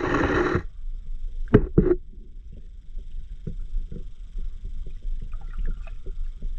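Muffled underwater sound picked up by a camera submerged in a river: a steady low rumble of moving water on the housing, a burst of noise at the start and two sharp knocks about a second and a half in, then faint scattered ticks.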